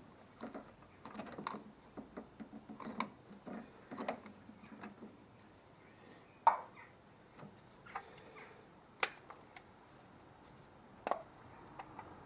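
Ignition HT leads being pulled off a Volkswagen distributor cap by hand: a run of small clicks and plastic knocks in the first few seconds, then a few sharper single clicks spaced a second or two apart.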